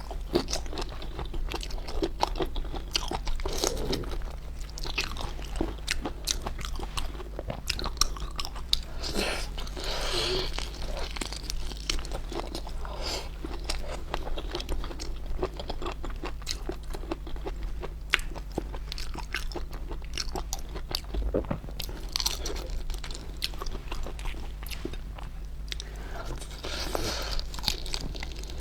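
Close-miked eating of stuffed prawns: biting and chewing, with many small irregular crisp clicks throughout.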